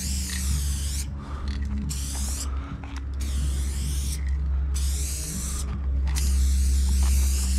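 Aerosol spray paint can spraying onto a wall in about five bursts of hiss, each half a second to a second and a half long, the last and longest near the end. A steady low rumble runs underneath.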